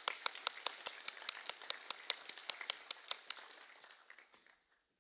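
Audience applauding, the claps falling together at about five a second, then thinning and dying away near the end.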